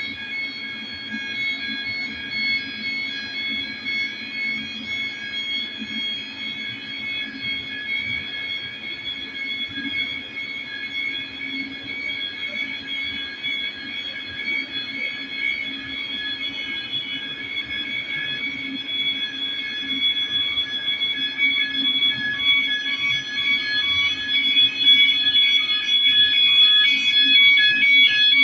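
Fire alarm sounding continuously with a steady, high electronic tone, set off by a smoke test on a detector. It grows gradually louder toward the end.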